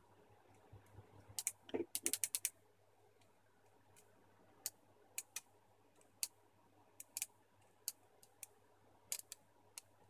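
Sharp small clicks and snaps from the brass contacts and red plastic housing of a Siemens washing-machine pressure switch being pried apart with needle-nose pliers. A quick run of about ten snaps comes about one and a half seconds in, followed by scattered single clicks a second or so apart.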